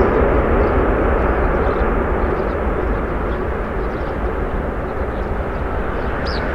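Airbus A380's four Rolls-Royce Trent 900 jet engines during the landing rollout: a steady jet rush that slowly fades as the aircraft moves away down the runway.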